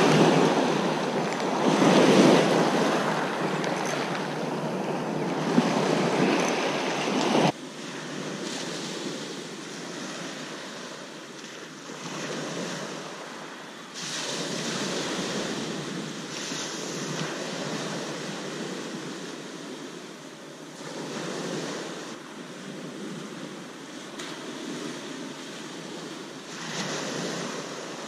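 Small waves breaking and washing up a shingle beach, the surf swelling and easing every few seconds. It is loud at first, then drops suddenly about seven seconds in to a quieter, more distant wash.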